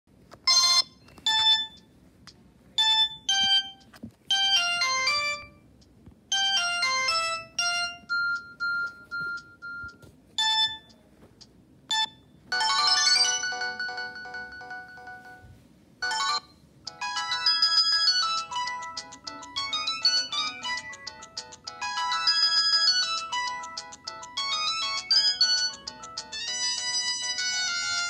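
Built-in ringtones of a Samsung GT-E2120 mobile phone previewed through its small loudspeaker. For the first twelve seconds, short electronic melody snippets start and are cut off one after another as the list is scrolled. A fuller tune with chords follows, then from about seventeen seconds a longer ringtone melody plays on.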